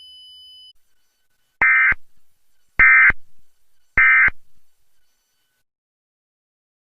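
Emergency Alert System End-of-Message signal: three identical short bursts of warbling digital data tones, about a second apart, marking the end of the alert. A faint steady high tone cuts off under a second in, before the bursts.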